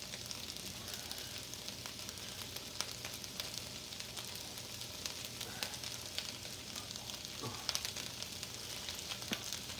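Onions frying in a pan: a steady sizzle with scattered small crackles and pops.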